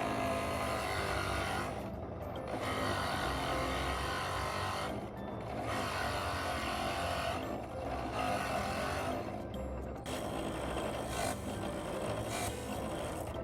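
Woodworking tool working on wood in repeated strokes, each about two seconds long with short breaks between, five in all, over background music.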